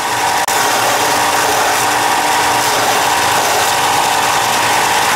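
Ryobi belt sander running steadily, its abrasive belt grinding a drill bit held in a General 825 sharpener jig. The bit sticks out too far past the lip rest, so the belt grinds it down too short.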